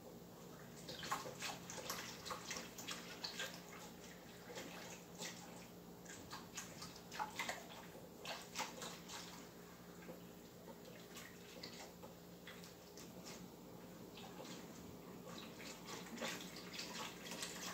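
Broth being stirred and whisked in a metal stockpot to mix in miso and seasonings: liquid sloshing, with irregular scrapes and taps of the utensil against the pot.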